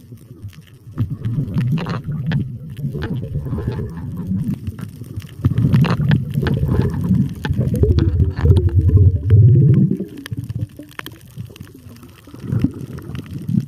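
Muffled underwater water noise at the camera: low rumbling and gurgling of water and bubbles as the diver moves. It swells about a second in, is loudest in the middle and eases near the end.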